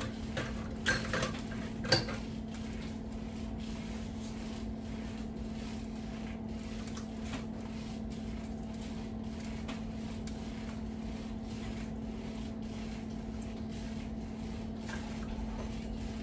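A spoon stirring rice in a metal cooking pot: faint repeated scrapes against the pot, with a few louder clinks in the first two seconds. A steady electrical hum runs underneath.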